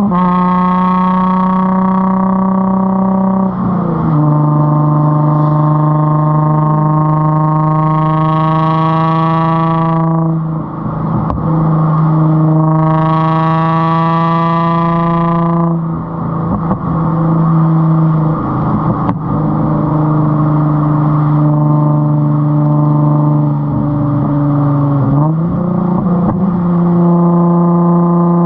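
Straight-piped Nissan 350Z's VQ35 V6 exhaust heard right at the tailpipe, running at a fairly steady engine speed with a loud droning hum. Its pitch drops a few seconds in, dips briefly twice as the throttle eases, and rises again near the end.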